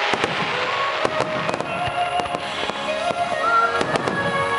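Aerial fireworks bursting in a rapid barrage, many sharp bangs in quick irregular succession, with music playing underneath.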